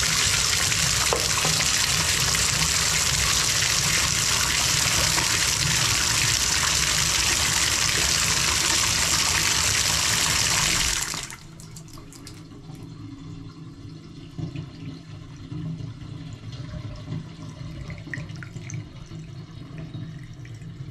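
Bathtub faucet running at full flow, shut off suddenly about halfway through, leaving faint trickling of water.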